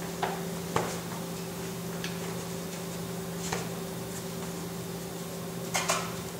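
A steady low electrical hum with a handful of short, sharp clicks and taps scattered over it, two of them close together near the end.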